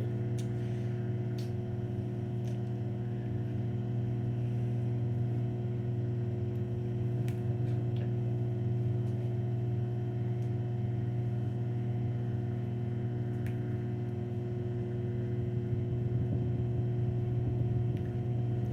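Microwave oven running with a steady low electrical hum and a few faint clicks while it heats a bowl of eggs.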